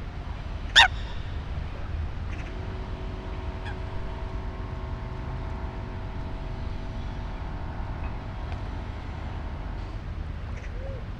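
City park ambience: a steady low rumble of distant traffic, a single loud, brief high-pitched squeak or chirp about a second in, then a steady hum of several tones held together from about two seconds in until near the end.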